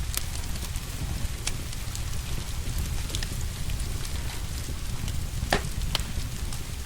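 Wood fire crackling in a fireplace, with scattered sharp pops (the loudest about five and a half seconds in), over the steady hiss and patter of rain.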